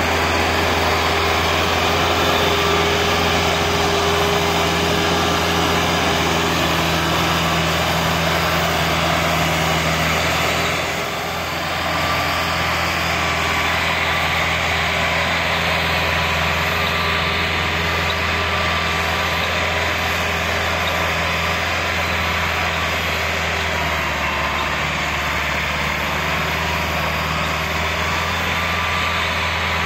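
Massey Ferguson 385 tractor's four-cylinder diesel engine running steadily under heavy load while pulling a loaded sugarcane trolley, its exhaust smoking black. The level dips briefly about eleven seconds in.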